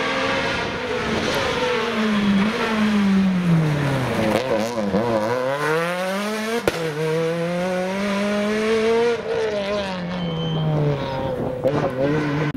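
Citroën C2 rally car at speed: the engine note drops through downshifts as it brakes for a bend, then climbs again as it accelerates hard away through the gears, rising once more near the end. There is a single sharp crack a little past halfway.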